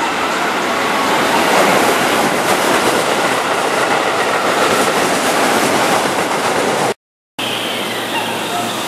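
Keihan 7000-series VVVF electric train passing on curved track, its wheels running over the rails. About seven seconds in the sound cuts out for a moment and a different, steadier train sound follows.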